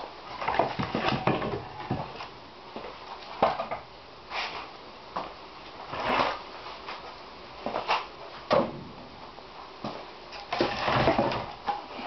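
Wood fire burning inside a steel wood-fired boiler, with irregular crackles, sharp pops and short rushing puffs.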